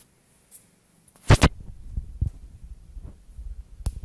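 Handling noise from a handheld phone microphone: two loud thumps about a second and a quarter in, then a low rumble with a few softer knocks, and a sharp click near the end.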